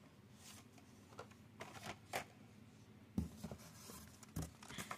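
Faint handling of carded Hot Wheels blister packs being lifted out of a cardboard case: light plastic clacks and card scrapes. The sharpest clack comes about three seconds in.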